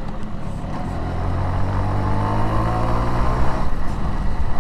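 Suzuki MAX 100 motorcycle's single-cylinder two-stroke engine running at an even pitch as the bike slows; its note breaks off about three and a half seconds in.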